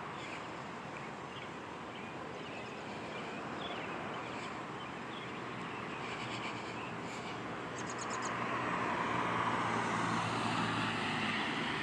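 Outdoor background noise with the engine hum of a passing vehicle growing louder about eight seconds in.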